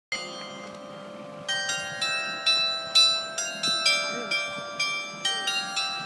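Clock-tower bell chime sounding the hour: a single bell rings out, then from about a second and a half in a tune of bells at different pitches is struck at about two notes a second, each note ringing on under the next.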